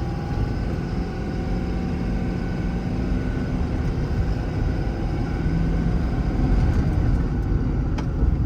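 Ford 6.7 Power Stroke V8 turbodiesel of a Ford F550 truck running under way, with engine and road noise heard from inside the cab. It gets somewhat louder past the middle.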